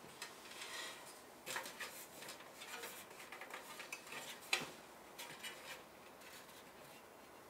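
Faint, scattered light clicks and clinks of the thin 1 mm titanium panels of a Pomoly T1-3 folding wood stove being handled, with one sharper click about four and a half seconds in.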